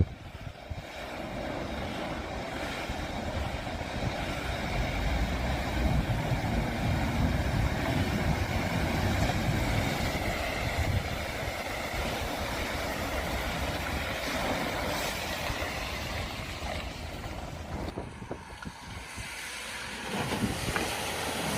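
A motor vehicle's engine running as it drives through deep flood water, with a steady low rumble and the wash of water. The sound dips briefly near the end, then rises again.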